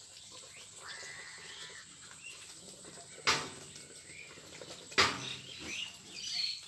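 Farm animals calling, most likely ducks: two short, loud calls about three and five seconds in, with high chirps near the end.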